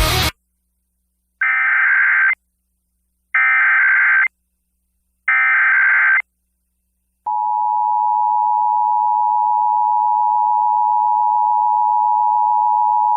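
Emergency Alert System broadcast test on FM radio. Rock music cuts off at the start, then three one-second bursts of the SAME digital header sound, each about a second apart, as a buzzy data warble. About seven seconds in, the EAS attention signal begins: a steady two-tone sound of 853 and 960 Hz played together.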